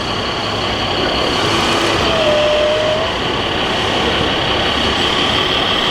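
Radio-controlled scale construction machines running, with a steady high-pitched motor whine over a dense mechanical rumble.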